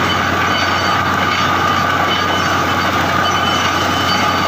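Truck-mounted borewell drilling rig at work boring a water well, a loud, steady mechanical din.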